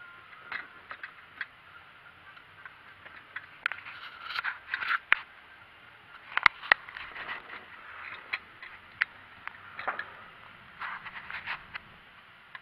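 Irregular scraping and clicking of plastic being handled around an engine's coolant reservoir, with two sharp clicks about six and a half seconds in.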